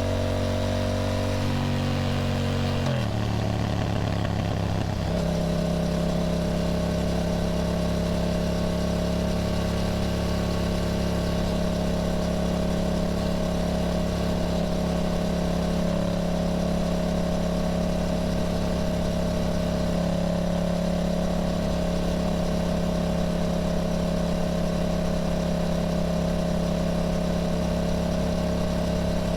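Yamaha motorcycle engine running on the road: its pitch shifts and drops about two to five seconds in, as with a gear change or easing off, then holds a steady drone at constant speed.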